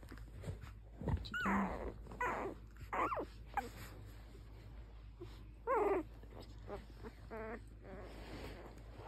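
Two-week-old doodle puppies whimpering and squeaking: about six short, high calls, several sliding down in pitch, the loudest about six seconds in.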